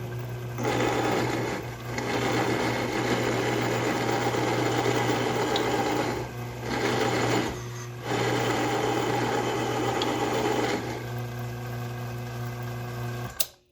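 Metal lathe running with a steady motor hum while a Morse taper drill bit in the tailstock bores into a brass rod. The cutting noise comes in three long stretches with short breaks. The lathe shuts off abruptly near the end.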